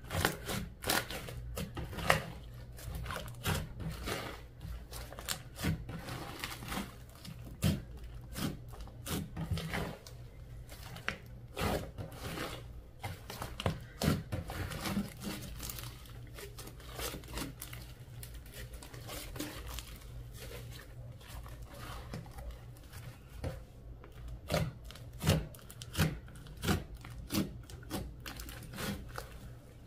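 Slime being squeezed and stretched by hand, giving a dense, irregular run of sticky clicks and small pops from trapped air bubbles.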